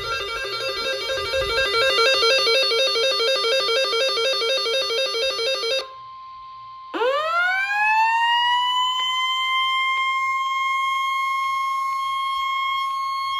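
Music of quick, repeating plucked or arpeggiated notes, cut off suddenly about six seconds in. A brief steady tone follows, then an alert tone that sweeps up like a siren winding up and holds one high, steady pitch, the attention signal of an emergency alert broadcast.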